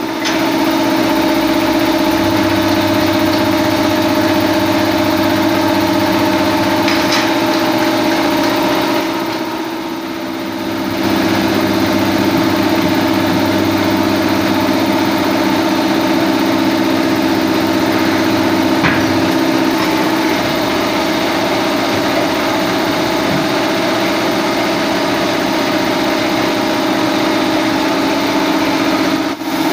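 Steady drone of a running machine motor, with a few faint metal clicks.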